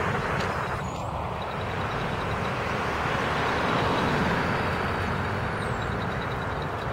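A city transit bus driving past: a steady engine and road noise that swells a little around the middle and then eases off.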